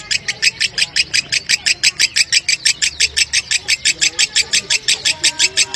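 Lovebird ngekek in the long 'konslet' style: an unbroken run of rapid, high-pitched chattering calls, about seven or eight a second, evenly paced and steady in loudness.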